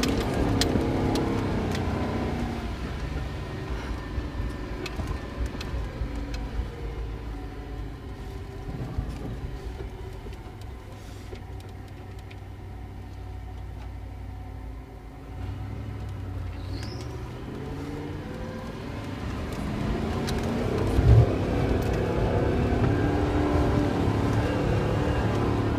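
Off-road 4x4's engine heard from inside the cabin while wading through shallow floodwater, with water splashing against the body and windshield. The engine note falls away over the first few seconds, stays low, then climbs again as the vehicle speeds up, with one sharp thump late on.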